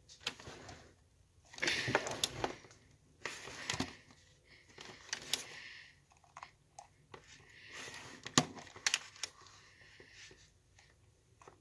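Irregular clicks and short rustles from a computer mouse being picked up and handled close to the microphone.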